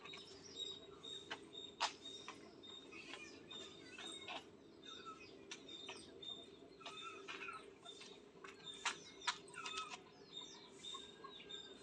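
Faint outdoor birdsong: several birds chirping and calling in short scattered notes, with a steady low hum underneath.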